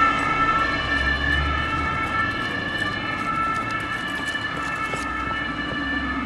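Swiss fire engine's two-tone horn sounding, switching steadily between a lower and a higher note and slowly fading as the vehicle drives away. A low engine rumble from passing traffic swells about a second in.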